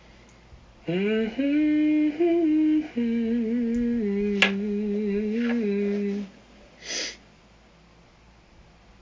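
A man humming a short wordless tune for about five seconds, starting with an upward scoop and moving in a few held notes. There is a sharp click partway through and a short hiss soon after the humming stops.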